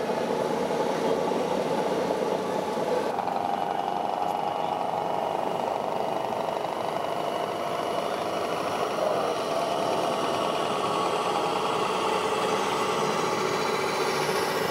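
Engine sound from radio-controlled model trucks' sound modules, a steady diesel-like running hum, with a change in its tone about three seconds in.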